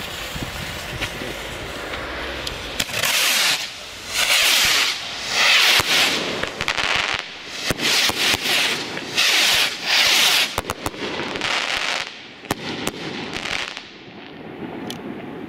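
Nine Nico ring rockets fired together from a tapematch fuse: a steady fizzing hiss for the first few seconds, then a run of about eight loud hissing bursts with sharp bangs and crackles as the rockets go off in the sky, dying away near the end.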